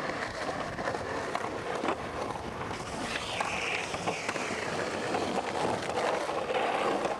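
Skateboard wheels rolling on concrete: a steady gritty roll with scattered sharp clacks of the board, and a brief higher-pitched rasp about three seconds in.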